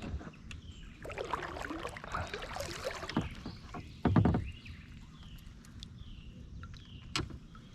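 Water splashing and sloshing against a kayak for a couple of seconds, then a loud thump on the boat about four seconds in, and a sharp click near the end.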